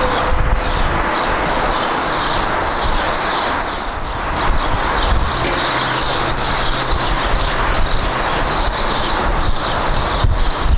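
Jet airliner engine noise, a loud steady roar, with birds chirping faintly over it.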